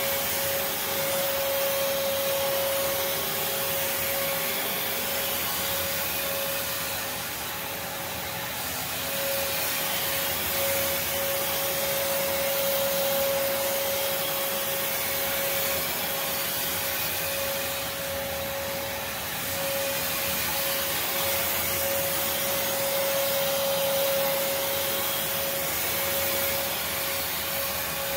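Prolux X8 Elite backpack vacuum running continuously: a steady rush of airflow with a steady motor whine, dipping slightly in level a couple of times.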